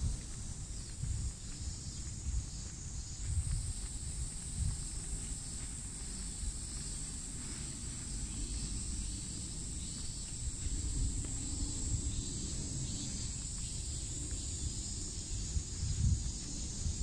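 A steady, high-pitched drone from a chorus of insects, growing stronger about three seconds in, over an irregular low rumble and soft thumps.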